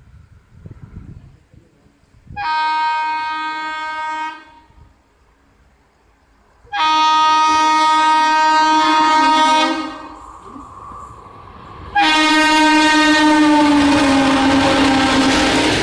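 WAP-4 electric locomotive's horn sounding three times as the express approaches at speed: a blast of about two seconds, one of about three seconds, then a long blast whose pitch drops slightly as the locomotive passes. The rush and rumble of the passing train build up beneath the last blast.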